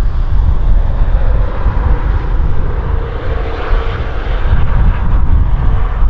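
CN freight train with GE ES44AC and ET44AC diesel locomotives passing close by: a loud, steady low rumble of engines and rolling cars.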